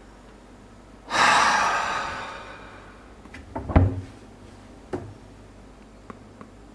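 A loud, breathy gasp that fades away over about two seconds, followed by a few sharp knocks and, a second later, a single click.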